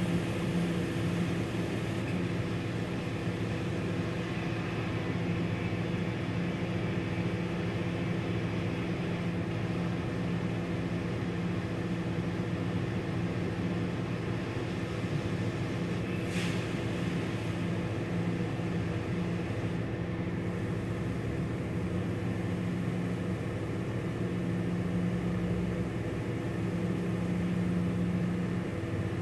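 PDQ ProTouch tandem soft-touch car wash running over a car: a steady machine hum under the hiss of spraying water, with a short louder hiss about halfway through.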